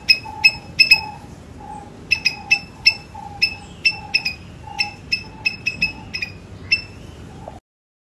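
Eastern gray squirrel barking: a string of short, sharp calls, about two or three a second, with a softer, lower note repeating beneath. It cuts off suddenly near the end.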